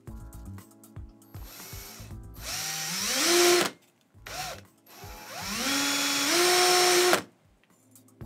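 Cordless Makita drill spinning a model-locomotive motor armature clamped in its chuck while metal sandpaper is pressed against the copper commutator to sand out its grooves. There are two runs of about two seconds, with a short blip between them. In each run the drill's whine rises in pitch as the trigger is squeezed, the hiss of the sanding sits over it, and the run cuts off suddenly.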